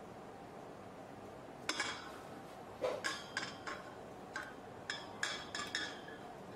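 A clear container and spatula tapping and clinking against a stainless steel mixing bowl as flour is scraped in: about a dozen sharp, irregular knocks, the first about a second and a half in and most in the second half.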